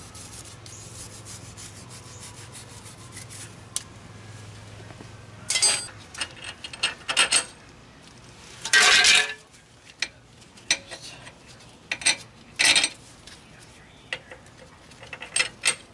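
A wire brush scrubs lightly on the steel splines of a front axle shaft for the first few seconds. Then comes a run of sharp metallic clinks and a short clatter as steel hub-mounting bolts are handled and set through the holes of the steering knuckle.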